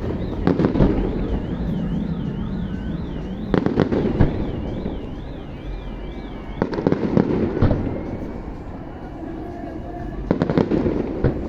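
Fireworks display going off: four volleys of sharp, rapid crackling bangs a few seconds apart, which the woman watching called final ones just before. A high warbling tone, rising and falling over and over, runs until about halfway through.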